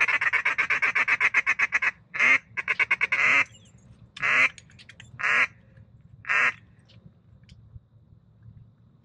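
Duck call blown close by: a fast run of rapid chattering notes, a short second burst, then three single drawn-out quacks about a second apart.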